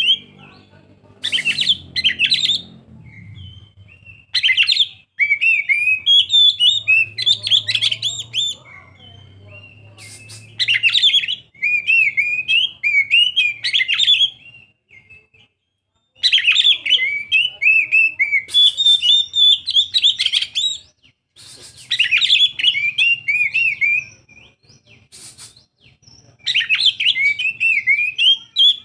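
Young oriental magpie-robin (kacer) singing: loud bursts of varied, quickly changing whistled and chattering phrases, a second to a few seconds each, with short pauses between them.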